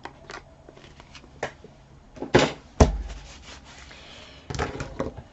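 Light clicks and taps of a glue bottle being capped and craft supplies handled on a work table, with two louder knocks about two and a half seconds in.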